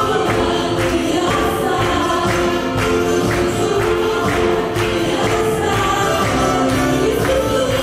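Live worship music: a band and singers amplified through a JBL sound system, with a steady beat.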